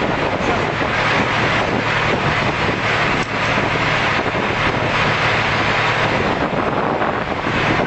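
Heavy diesel machinery engine running steadily with a constant low hum, mixed with wind noise on the microphone.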